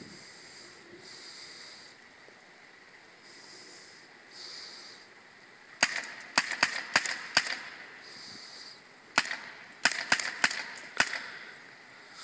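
Paintball marker firing about ten sharp shots in two quick strings, five in under two seconds starting about halfway through, then after a short pause five more.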